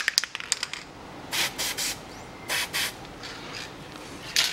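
A few light metallic clicks, then five short hissing spurts, three and then two, of grease being sprayed onto a steering tie rod end.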